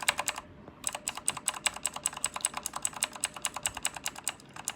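Rapid typing on a Redragon K552 mechanical keyboard with clicky blue switches: a fast, steady run of sharp key clicks that breaks off briefly about half a second in.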